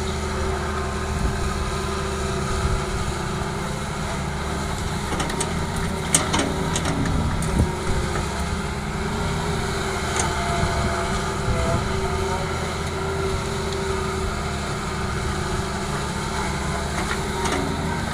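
Heavy diesel engines of an excavator and dump truck running steadily, with a few sharp knocks about six to eight seconds in.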